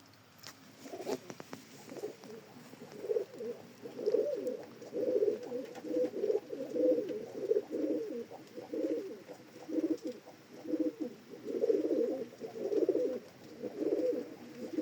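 Domestic pigeon of the teddy breed cooing over and over, in low pulsing phrases about one a second, with a few light clicks about a second in.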